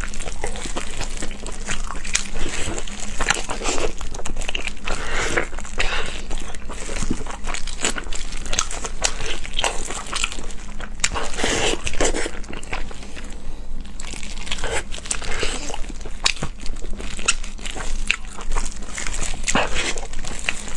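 Close-up eating sounds of someone chewing and gnawing a braised pig's trotter: wet smacking, sucking and small clicks as meat is worked off the bones.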